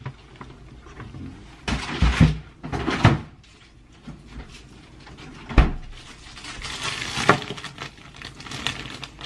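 Kitchen handling sounds as a freezer is opened and a frozen chicken breast is taken out: several knocks and thumps, the sharpest about halfway through, then the rustle of a plastic zip bag.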